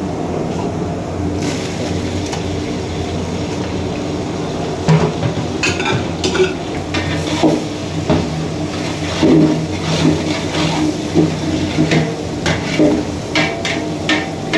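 Chopped boti (goat tripe) sizzling as it goes into hot oil and onions in a steel pot, over a steady low hum. From about five seconds in, a metal ladle stirs it, with repeated scrapes and clinks against the pot.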